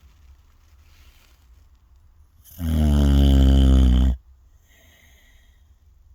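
One loud, low-pitched snore about two and a half seconds in, lasting about a second and a half, with faint breaths before and after it.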